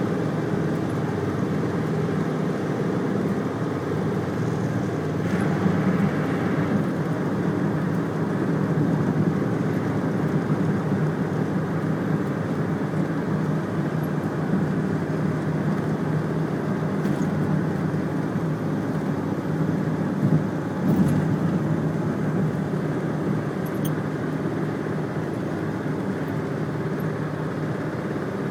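Steady rumble of a vehicle travelling at speed, holding the same level throughout, with a few brief clicks.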